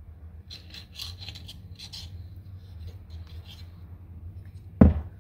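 Small brush scrubbing anti-seize compound around inside the bolt holes of a steel lower control arm: a run of short scratchy strokes, over a steady low hum. One sharp knock near the end.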